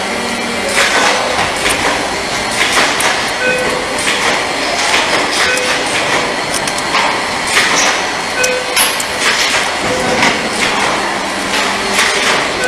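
Machinery clattering steadily: a dense run of sharp clicks and knocks over a constant mechanical noise, with short faint tones recurring every second or two.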